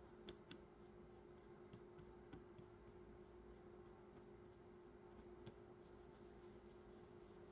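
Near silence: faint, irregular clicks from handling a laptop, over a low steady hum.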